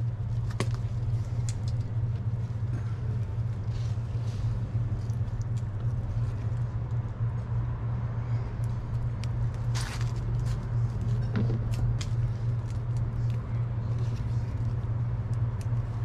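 A steady low mechanical hum throughout, with scattered small clicks and snaps from hands picking tomatoes off the vines.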